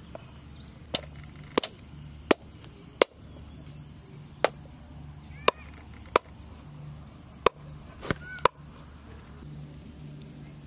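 A knife chopping the claws off raw chicken feet on a wooden cutting board: about ten sharp chops at uneven intervals, with faint bird chirps in between.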